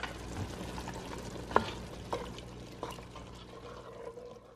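A chunky beef, cabbage and bean stew being stirred with a silicone spatula in a stainless steel pot, over a faint steady sizzle from the pot. A few light clicks of the spatula against the pot come through in the middle.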